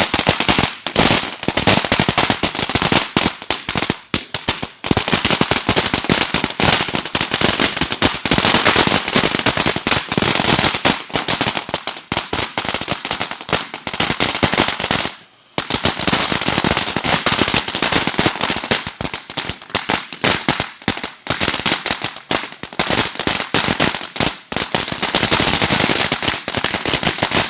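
TNT Ants ground fountain firework going off: a dense, rapid crackle of small pops over a steady high hiss. It breaks off for a moment about fifteen seconds in, then resumes.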